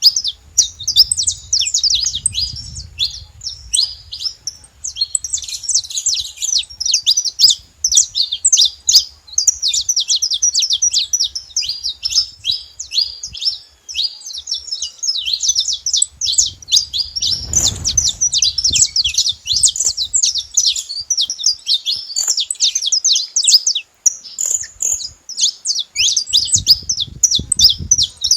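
Saffron finch singing: a fast, unbroken stream of high, sharp chirps and trills.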